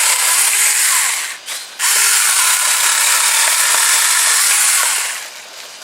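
Saker 20V battery-powered mini electric chainsaw running and cutting through a tree limb. It is a loud, high-pitched whir that stops briefly about a second and a half in, starts again, and winds down near the end.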